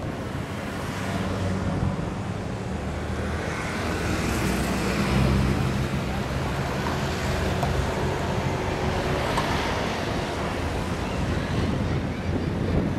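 A car driving in town traffic, heard from inside the car: a steady mix of engine hum and road noise.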